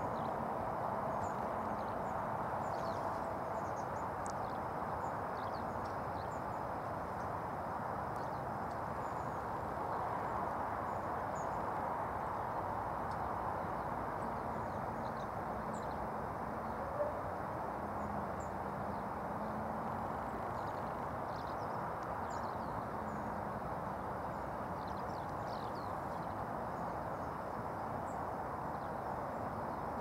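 Long-tailed tits giving high, thin contact calls in short scattered runs, over a steady low background rumble.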